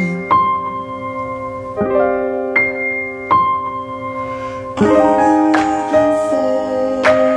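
Background music led by piano, slow ringing chords with a new chord struck every second or so.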